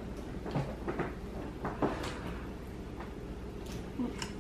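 Scattered light clicks and knocks of tableware being handled at a table: plates, glasses and a plastic syrup jug set down and moved.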